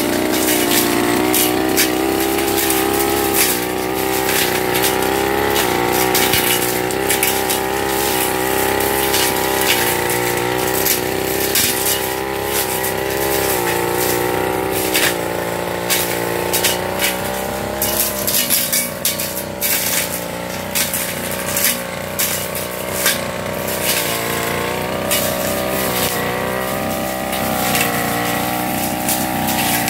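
Backpack brush cutter engine running at high speed, its pitch sagging and picking up again several times as the cutting head is swung through grass and weeds. Many sharp ticks mark the head striking stems and debris.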